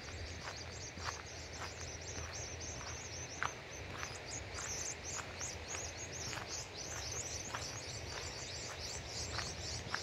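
Footsteps walking on a dirt road, about two steps a second. Behind them is dense, high-pitched chirping.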